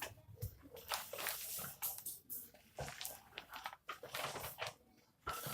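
Faint, irregular scuffs and clicks of a bicycle being rolled backwards.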